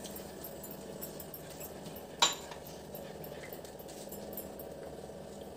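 A single sharp clink of kitchenware about two seconds in, over a steady low background hum.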